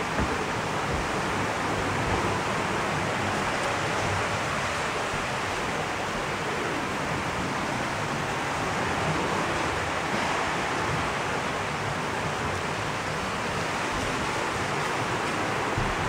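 Steady splashing and bubbling of heavily aerated water in concrete koi holding tanks, an even rush of water with no breaks.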